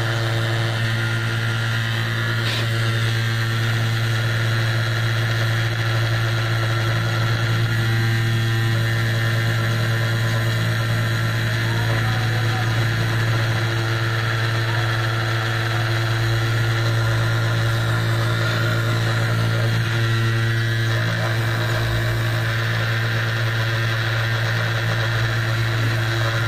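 775 DC spindle motor of a CNC 2417 desktop router running at about 6000 rpm while a carbide ballnose end mill engraves anodized aluminium, a steady low hum.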